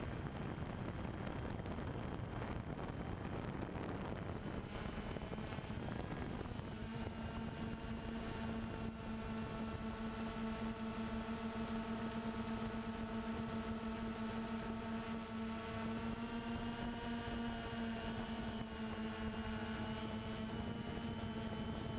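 Camera drone's motors and propellers buzzing, heard through the camera it carries: a rushing noise at first, then a steady hum with a clear pitch from about a third of the way in, wavering slightly in pitch later on.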